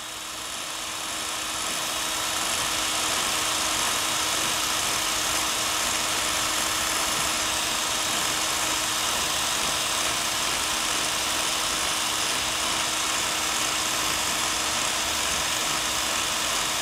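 Power scraper running steadily, its blade scraping the blued flat of a lathe compound slide to take down the last high spots. An even buzzing hiss with a faint steady hum underneath, coming up over the first couple of seconds.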